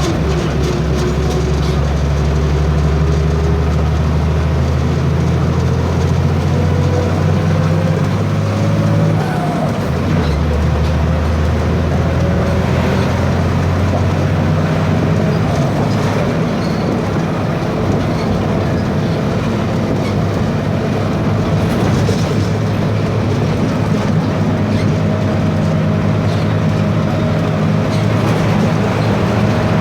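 VW 17.230 EOD articulated bus engine running under way, with its turbocharger whining: a thin whistle that rises slowly in pitch and holds steady near the end. The deep engine drone drops about ten seconds in.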